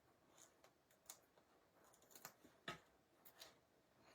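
Faint, scattered clicks and taps of cardstock and adhesive foam dimensionals being handled and pressed down, the loudest about two and a half seconds in.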